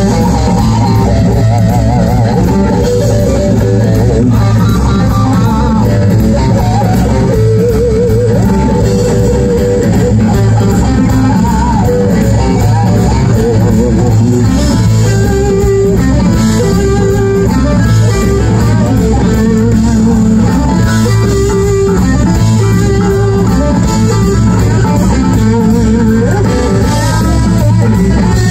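Live rock band with electric guitars, bass and drums playing an instrumental stretch, a lead guitar line wavering with bends and vibrato over a steady low bass groove.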